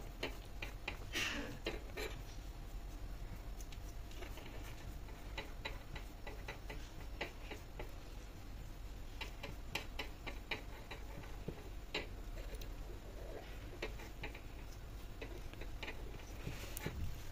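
Soft, irregular clicks and taps of hands gathering and rolling cut strips of paratha dough on a work surface, over a low steady hum.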